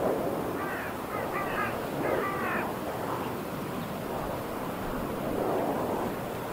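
Steady whooshing of wind turbine rotors, swelling and easing slowly. About a second in, a bird calls three times in quick succession.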